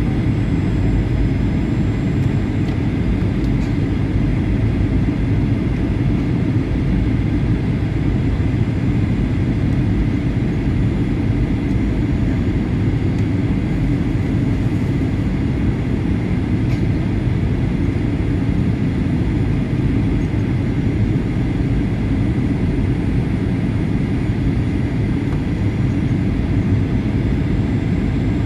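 Steady jet airliner cabin noise inside a Boeing 737-800 on its descent: an even low rumble of airflow and CFM56-7B engines, with a faint steady high tone above it.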